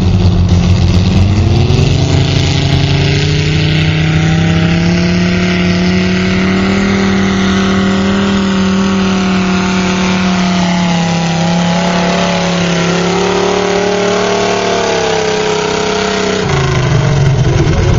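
Three-engine garden pulling tractor running at full throttle as it pulls a sled down the track. The engines rise in pitch during the first couple of seconds, hold high and steady through the pull, and drop back near the end.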